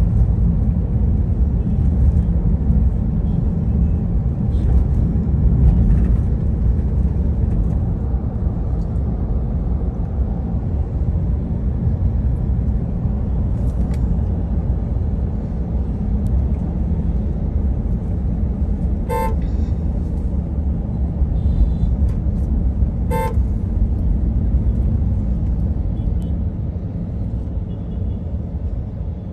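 Steady low rumble of a moving vehicle on the road, with two short horn toots about four seconds apart in the second half.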